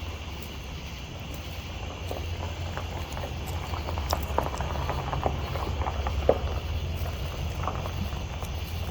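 Wind rumbling on the microphone, with scattered light clicks and knocks that are busiest in the middle few seconds.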